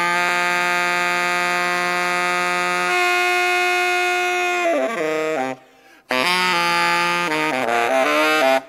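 Background music: a melody of long held notes that steps down in pitch about three seconds in, breaks off briefly past the middle, then resumes with quicker notes.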